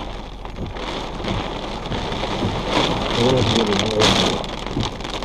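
Heavy rain pouring down on a vehicle, heard from inside the cabin as a steady hiss of rain on the roof and glass, with a brief louder surge about four seconds in.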